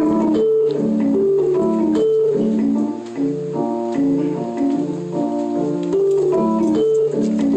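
Live band's instrumental passage led by an electric keyboard with an organ-like sound, playing quick runs of steady notes and chords in a regular rhythm, with no vocals.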